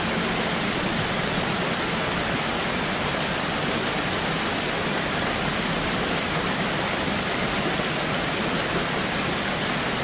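Steady rushing of a waterfall, an even, unchanging wash of water noise.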